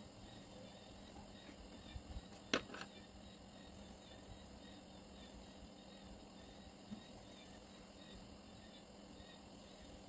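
Quiet room tone with a faint hum and faint high chirping, like insects. About two and a half seconds in comes a sharp click and then a softer one, as a coloured pencil is set down and another picked up.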